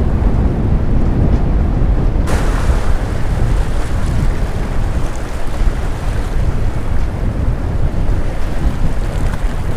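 Strong wind buffeting the microphone over choppy lake waves washing and splashing against a concrete pier. About two seconds in, a brighter, hissing wash comes in and stays.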